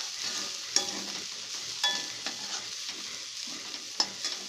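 A spatula stirring and scraping a dry fry of drumstick leaves, moong dal and grated coconut in a metal kadai, the food sizzling steadily. The spatula strikes the pan with a few sharp, briefly ringing clinks.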